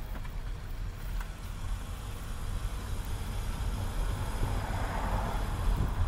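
A car driving, its engine and tyre noise a steady low rumble, with a hiss that swells from about four seconds in.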